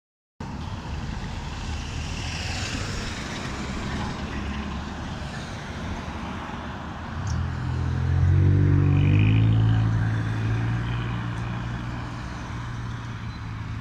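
Road traffic passing: tyre and engine noise from cars, a van and a school bus. About seven seconds in, a heavy diesel engine grows loud, its pitch dropping in steps, then fades to a low steady hum.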